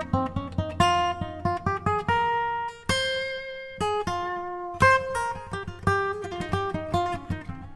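Background music: a plucked acoustic guitar playing a quick run of single notes and chords.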